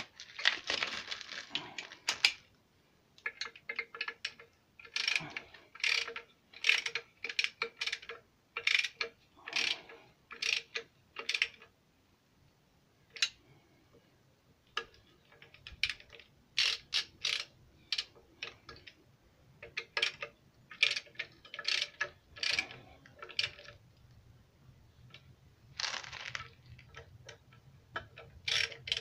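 Ratchet wrench clicking in short runs with brief pauses as the bolts of a clutch pressure plate on an engine's flywheel are turned, with metal tool clinks.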